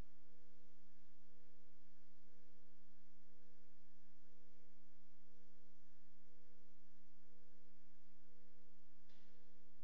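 Steady electrical hum made of several low tones, with a higher tone pulsing on and off about once a second. A brief soft hiss comes near the end.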